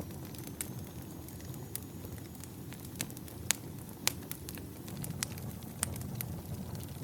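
Wood campfire burning: a steady low rush of flame with irregular sharp crackles and pops from the burning logs, two louder pops a little past the middle.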